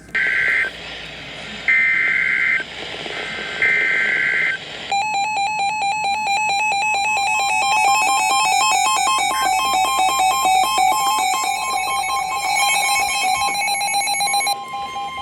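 Emergency Alert System header and attention signal. Three bursts of buzzing SAME data tones, about a second each, come first. About five seconds in, the steady EAS two-tone attention signal starts, and it stops shortly before the spoken warning.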